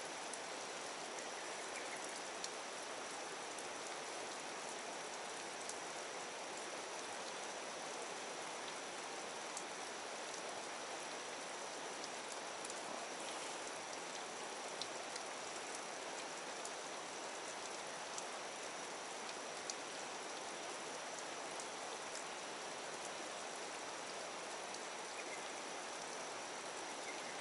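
Steady rain falling on the water surface and the grassy bank, an even patter with a few faint ticks scattered through it.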